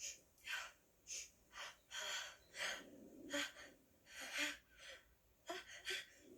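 Cartoon sneeze build-up: a dozen or so short, sharp, breathy gasps in quick succession as a sneeze comes on.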